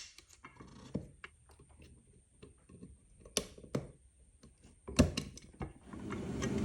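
Small clicks and knocks of metal parts being handled as the impeller goes onto the ATV water pump, with a sharper knock right at the start and a cluster of knocks about five seconds in. Near the end a steady mechanical noise starts and grows louder.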